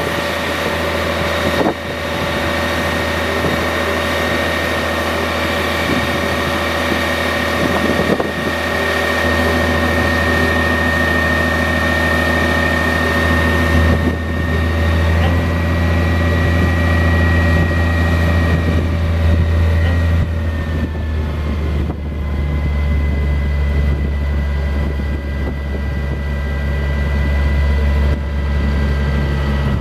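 Caterpillar 3126 diesel engine running with a steady high hydraulic whine as the Altec digger derrick's boom is raised. The engine note and the whine shift a few times, about a third of the way in and again around two-thirds through, as the boom moves.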